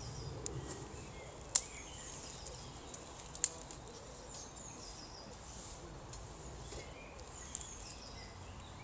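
Outdoor ambience with small birds chirping, short high calls repeated throughout, and two sharp clicks about two seconds apart in the first half.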